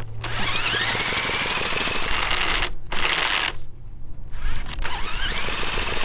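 Cordless drill spinning a Jerry Howell V-twin model petrol engine over by its flywheel nut: a whine that rises as the drill speeds up, cutting out briefly twice around three and four seconds in, then spinning up again. The engine is being cranked but does not fire.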